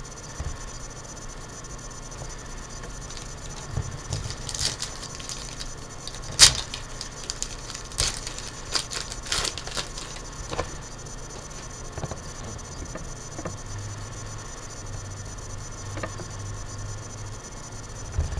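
Foil trading-card pack wrapper crinkling and tearing open, with a run of sharp crackles, the loudest about six seconds in, then quieter rustling and clicking of cards being handled.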